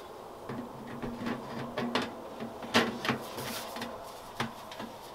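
Black sheet-metal stove pipe sections being fitted together by hand, giving a few sharp metallic clicks and knocks.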